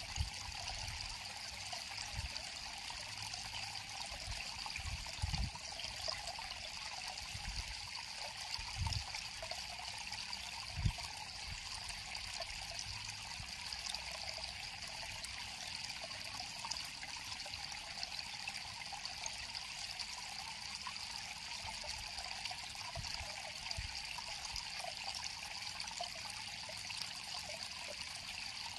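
River water flowing and trickling steadily over stones. A few short low thumps come in the first ten seconds or so.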